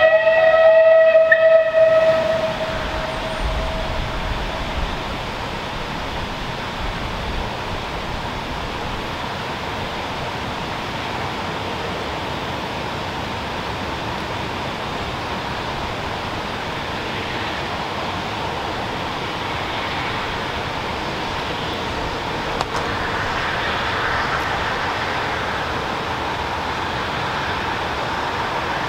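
A pitched, whistle-like tone with overtones that dies away over the first few seconds. After it comes a steady, even noise, which fits a train approaching from far down the line, growing a little louder near the end.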